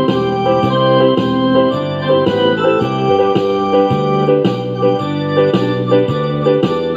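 Background instrumental music with sustained keyboard-like chords and a steady pulse of notes, roughly two a second.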